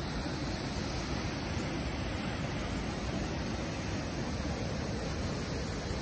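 Steady rush of a large waterfall's falling water, an even, unbroken noise.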